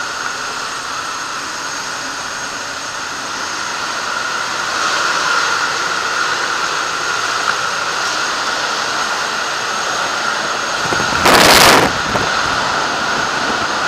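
Steady drone of a light aircraft's engine and propeller mixed with wind rushing through the open jump door. About eleven seconds in there is a brief, much louder rush of wind.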